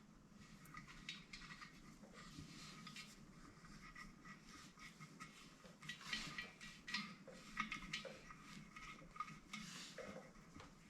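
Faint scattered clicks and light metallic clinks of small brass pipe fittings being handled, with a busier cluster of clinks around the middle.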